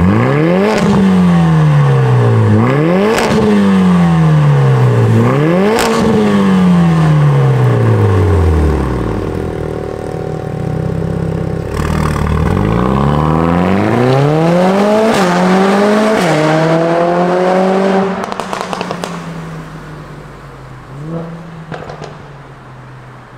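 Mercedes-AMG A45 S (W177) turbocharged 2.0-litre four-cylinder through a Fi Exhaust valvetronic catback with catless downpipes. First it gives three quick free revs, each climbing sharply and sinking slowly back to idle. About halfway through, the car pulls away hard, the engine rising through two upshifts, then fading as it drives off.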